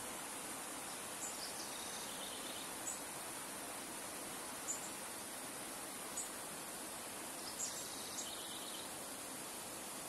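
Shallow river flowing over stones, a steady rush of water. Above it a small bird chirps high and short about six times, with two longer stepping-down call phrases, one near the start and one near the end.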